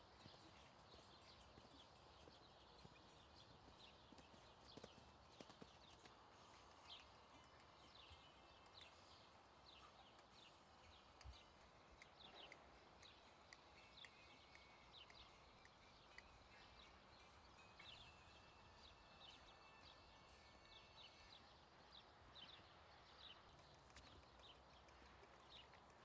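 Faint, muffled hoofbeats of a horse moving on sand arena footing, with soft high chirping heard over them throughout.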